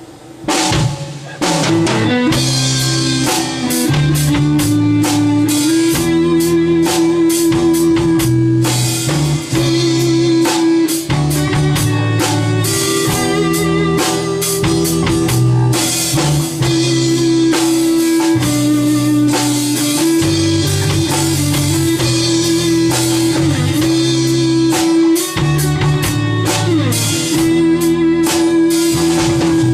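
Rock band starting a song's instrumental opening without a count-in, kicking in about a second in: drum kit, guitar and bass, with a long held note over a moving bass line.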